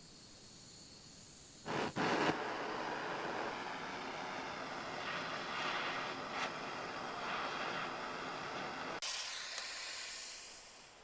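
An electric shop power tool starts about two seconds in and runs with a steady noise. About nine seconds in, its lower sound cuts out, and a high hiss fades away near the end as it winds down.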